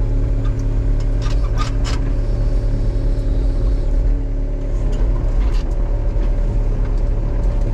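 Case tracked excavator's diesel engine running steadily under load as the machine tracks back and forth over logs, with a few short cracks and knocks about two seconds in and again around five seconds.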